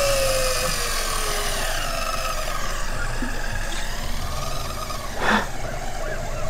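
Shimano Beastmaster electric reel motor winding in line against a hooked fish, a steady whine that sags slowly in pitch over the first second or two. A short louder sound breaks in about five seconds in.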